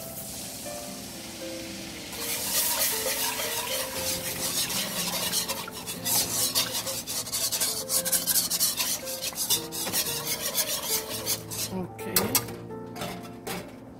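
Chicken stock poured into a hot, bubbling butter mixture in a pan, hissing for the first couple of seconds. Then a wire whisk beats and scrapes it round the pan in rapid strokes, easing off near the end.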